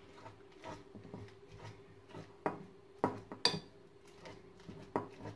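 A metal fork mashing bananas in a glass bowl: irregular taps and clinks of the fork against the glass, a few louder ones around the middle and near the end, over a faint steady hum.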